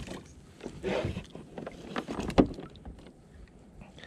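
Scattered short knocks and clatter on a plastic sit-on kayak while a small flathead just landed is handled on deck. The sharpest knock comes about two and a half seconds in.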